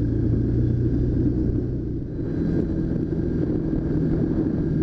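Side-by-side UTV, likely a Can-Am Commander, driving at trail speed with a steady engine hum and tyre and road rumble. About two seconds in, the engine note moves higher.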